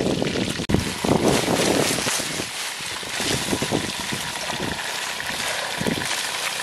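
Wind buffeting the microphone in low gusts, with a steady rustle of leaves and twigs as a hand sorts through a basket of leafy fruit.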